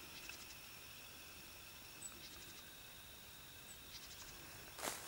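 Faint, distant small birds chirping outdoors: short high chirps and quick trills every second or two. A single brief knock sounds just before the end.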